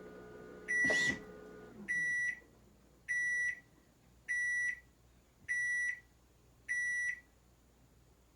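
Drum washing machine's motor hum dying away with a falling pitch, with a click about a second in, while the machine sounds six even electronic beeps about 1.2 s apart, its end-of-cycle signal.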